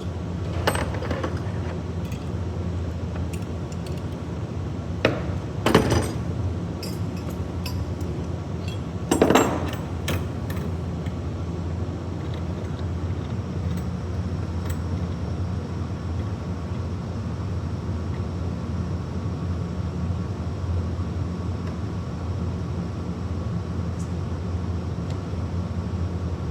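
Swaging tool being worked on a copper line clamped in its block: a few scattered metallic clinks and clicks, the loudest around a third of the way in, over a steady low hum.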